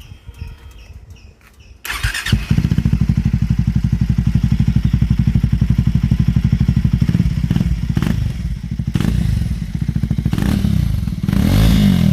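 Triumph Speed 400's single-cylinder engine, breathing through an AEW Edge slip-on exhaust, starts about two seconds in and settles into a steady, bass-rich idle with evenly pulsing exhaust beats. It gets a couple of short throttle blips and a rising rev near the end.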